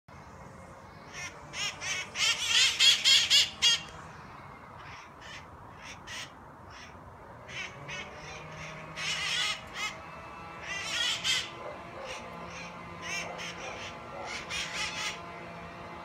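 Parrots giving harsh, repeated squawking calls in bursts, the loudest a rapid run of calls about two to four seconds in, with shorter bursts later on.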